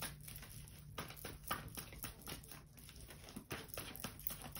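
Tarot cards being shuffled and handled: a soft run of light, irregular clicks and taps, a few each second.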